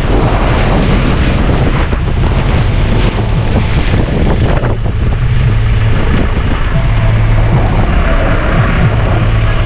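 Wind rushing over the microphone from a moving van, over the steady low hum of its engine and road noise.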